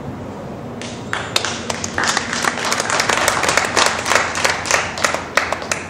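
Spectators clapping and applauding, marking the end of a dog's obedience exercise. It starts about a second in, swells into dense applause with sharp single claps standing out, and stops just before the end.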